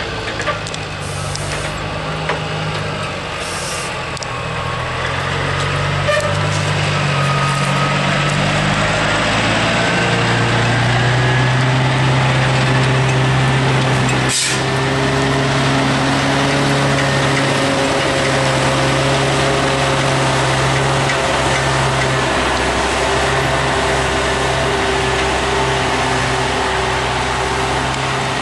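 Log truck's diesel engine running steadily, its pitch stepping up and down several times as engine speed changes. A few short hisses come near the start, and a single sharp knock about halfway through.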